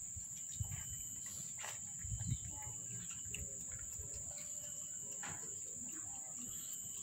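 Insects trilling in a steady, high-pitched drone, with a few soft low thumps about half a second and two seconds in.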